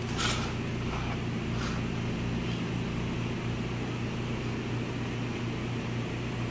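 Steady low electric hum of shop machinery, with a couple of faint clicks near the start as metal transmission parts are set down on the steel bench.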